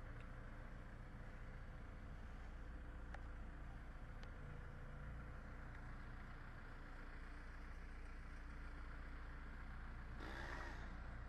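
Backhoe loader's diesel engine running steadily, a low hum; it briefly gets louder about ten seconds in.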